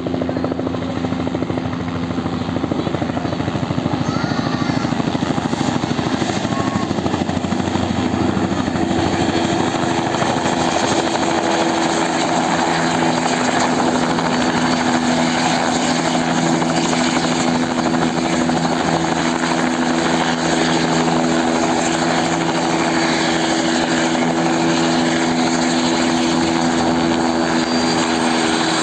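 Light helicopter running: a steady, fast rotor-blade chop with a humming engine tone as it comes in, hovers just above the pad and settles onto it, rotors still turning at full speed.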